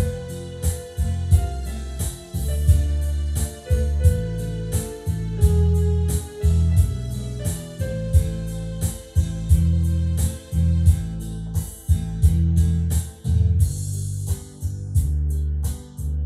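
Yamaha PSR-E443 portable keyboard being played: a melody in the middle register over a steady beat and a low, sustained bass line.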